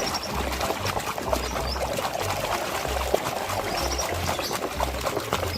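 Water splashing and pouring as a muddy toy vehicle is washed by hand, with a low beat of background music underneath.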